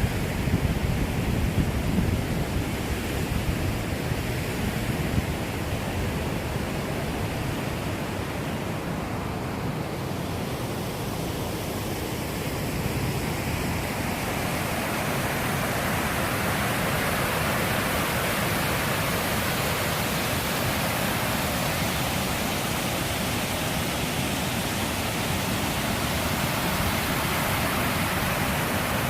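Waterfall rushing: a steady noise of falling water, a little louder and brighter from about halfway through.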